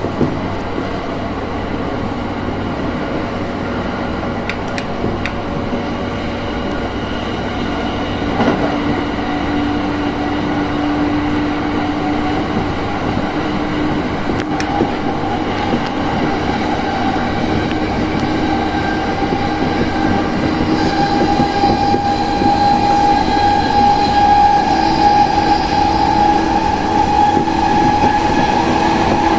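Electric commuter train running at speed, heard from inside the car: a steady rumble of wheels on rail with a few clicks over the rail joints. A steady whine rides on top and grows louder about two-thirds of the way in.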